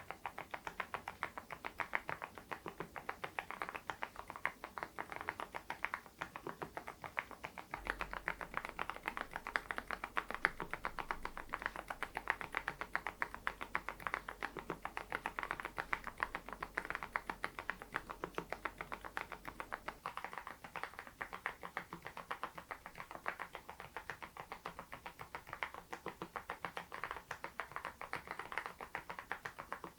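Continuous typing on a Geekstar GKG87R tenkeyless mechanical keyboard fitted with its stock HMX Sunset silent linear switches: a steady, rapid run of keystrokes.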